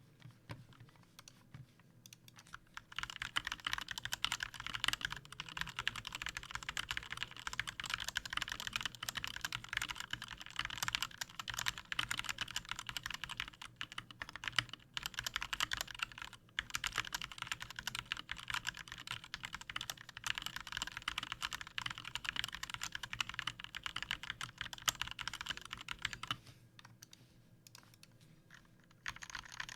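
Fast, continuous typing on a GMMK Compact 60% mechanical keyboard with lubed Gateron Yellow SMD linear switches and Havit Pudding keycaps: a dense stream of key clacks. It starts about three seconds in, breaks off briefly twice, and stops a few seconds before the end.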